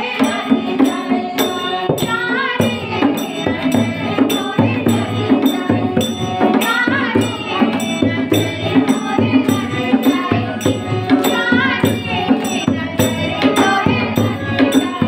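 A group of women singing a Hindi devotional bhajan to Krishna together, clapping their hands on a steady beat.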